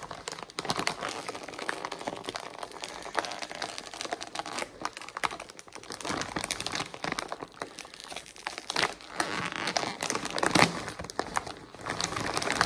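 A Lay's Kettle Cooked potato chip bag crinkling and rustling in irregular bursts as it is pulled open at the top seal. It is loudest about nine and ten and a half seconds in.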